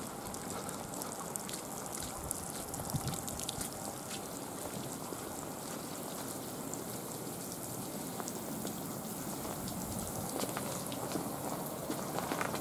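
Steady rain falling, with many small drops ticking throughout.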